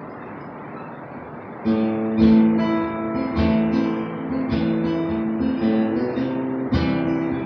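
Steady recording hiss, then an acoustic guitar starts strumming chords about a second and a half in, the strums ringing on in a slow, even rhythm as a song intro.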